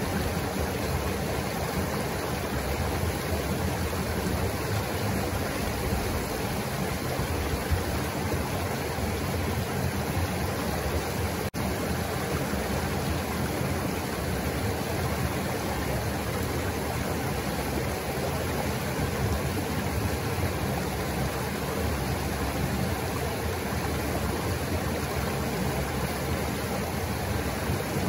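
River water flowing and rushing steadily.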